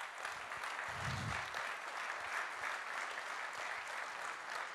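Congregation applauding steadily, many hands clapping together.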